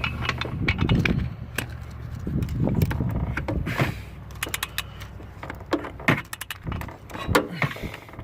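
Irregular metallic clicks and clinks of a ratchet working on brass line fittings. A low hum cuts off about a second in.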